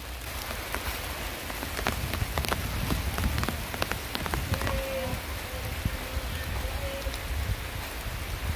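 Rain falling steadily, with scattered sharp drop ticks.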